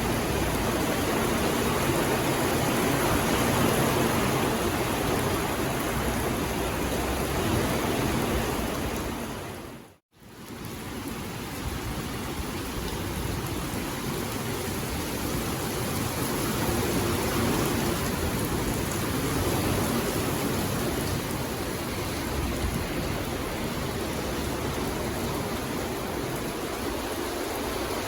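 Steady, continuous rain, a dense even hiss. About ten seconds in it fades briefly to near silence and comes straight back, like the join of a looped recording.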